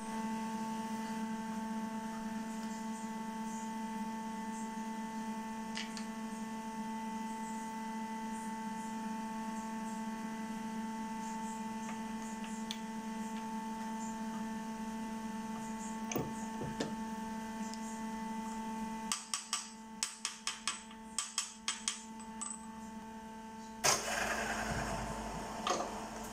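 Steady electrical hum, a low tone with higher overtones. About two-thirds of the way through the upper overtones drop away and a rapid run of about a dozen sharp clicks follows. Near the end comes a short noisy rustle with a low rumble.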